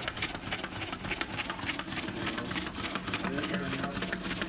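Small battery-powered gear motor of a plastic Strandbeest-style walking mechanism running, its linkage legs clicking and tapping on a wooden floor in a fast, even clatter over a steady low hum.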